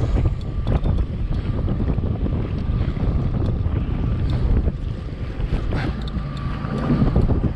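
Strong wind buffeting the microphone, over choppy sea water splashing around a jet ski.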